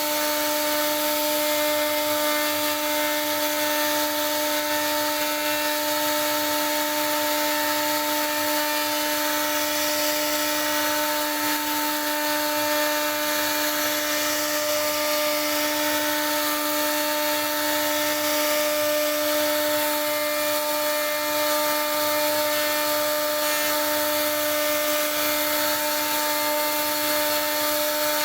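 CNC router spindle running steadily with a constant whine while its bit cuts into wood, over a continuous hiss of cutting.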